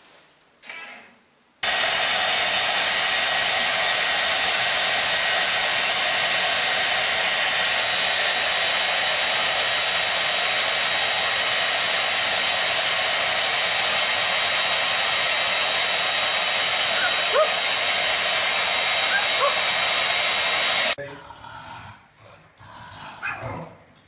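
Handheld hair dryer running steadily with a faint high whine, switched on suddenly a couple of seconds in and cut off near the end.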